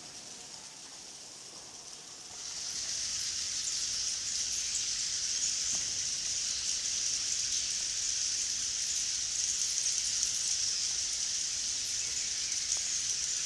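Rainforest ambience: a steady high-pitched hiss that gets louder about two seconds in and then holds.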